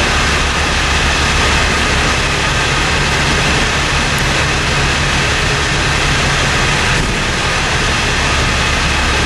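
A 1986 KME fire engine's engine running steadily at idle: a loud, even drone with a low hum that does not change speed.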